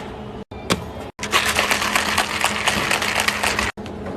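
Ice cubes clattering, a dense rattle of many sharp clicks that starts a little over a second in and stops abruptly near the end.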